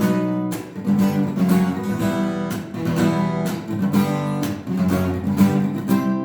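Acoustic guitar strummed with a pick in a steady rhythm, playing an intro riff on barre chords.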